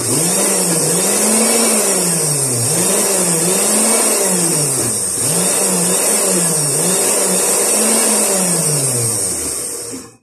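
Countertop blender motor running for about ten seconds while it blends a thick basil, garlic and olive oil pesto. Its pitch rises and falls over and over, about every second and a half, then winds down near the end.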